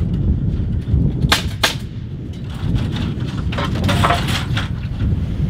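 Wind buffeting the microphone throughout. A little over a second in, two sharp shots about a third of a second apart ring out from a pneumatic framing nailer driving nails into the wall framing, followed by a few fainter knocks.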